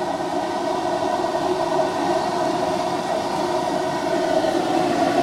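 Steady, unbroken roar from the stall's stove burning under a large wok of frying oil.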